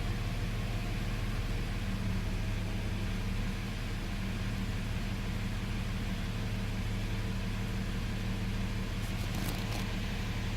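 Car engine idling steadily with a low even hum, with a few faint ticks near the end.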